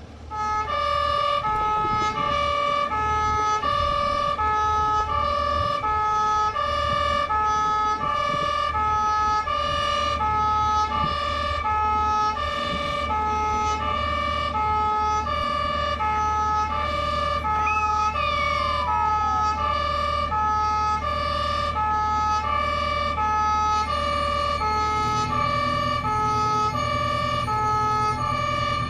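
Two-tone siren of a historic fire engine, alternating steadily between a high and a low note. The truck's engine runs underneath with a steady low hum, which grows louder near the end.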